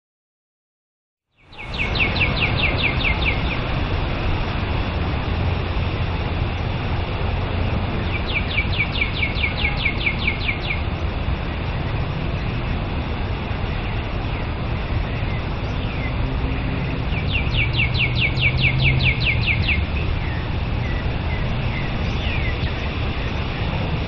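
Outdoor ambience: a songbird sings a fast trill of short downward-slurred notes, about seven a second, three times roughly eight seconds apart, over a steady hiss and low rumble. The sound begins after about a second and a half of silence.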